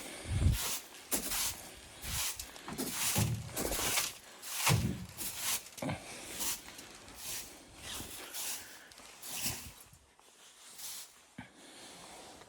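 Footsteps crunching in snow, a step about every half-second to second, some with a dull thud underfoot, stopping about ten seconds in.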